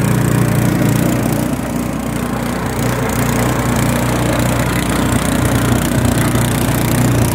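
Branco 5.5 HP single-cylinder four-stroke gasoline engine running steadily, driving a sugarcane juice mill through a belt.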